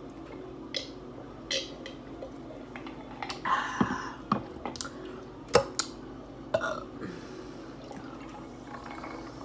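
Close-up eating sounds: short wet clicks and smacks of chewing and lips, coming at irregular intervals.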